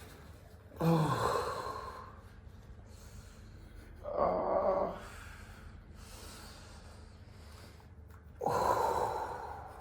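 A person breathing heavily: three loud breaths, each about a second long and three to four seconds apart.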